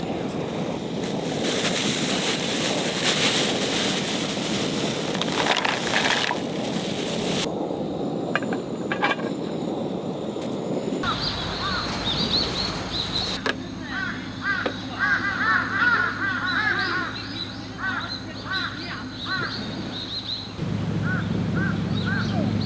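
A few seconds of even rushing noise, then, after a cut, birds calling over and over in short arched calls above a low steady hum.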